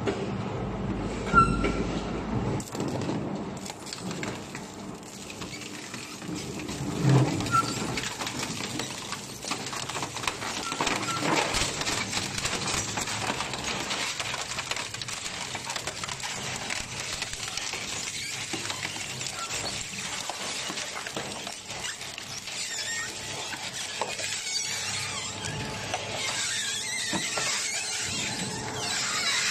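Twin-shaft shredder's slow-turning hook-toothed cutters tearing and crushing car body panels: continuous crunching, cracking and squealing of torn sheet metal over a steady drive hum, with sharp loud cracks about a second and a half and about seven seconds in.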